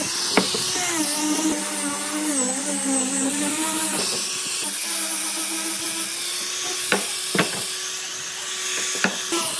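A power tool's electric motor running steadily, its pitch wavering slightly, with several sharp knocks about half a second in and again near the end.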